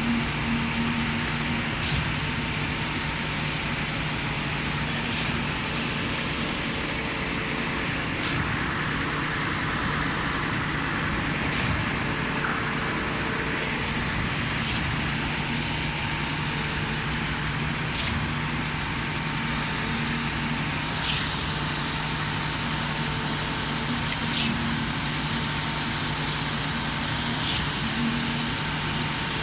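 Truck-mounted concrete pump running steadily, with a short knock about every three seconds, the rhythm of the pump's pistons changing stroke.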